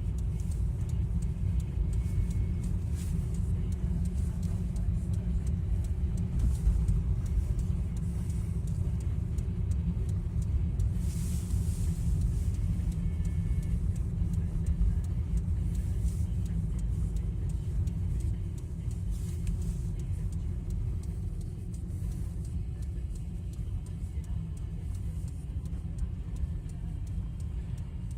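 Steady low rumble of a car on the move, its road and engine noise heard as a constant deep drone.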